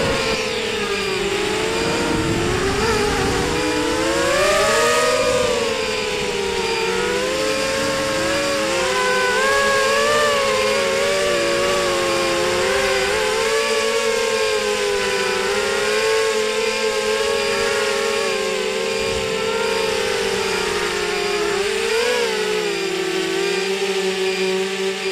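ZMR250 racing quadcopter's four T-Motor 1806 2300kv brushless motors spinning 5x4 props, whining at several close pitches that rise and fall continuously as the throttle changes through the flight, over a steady rush of air.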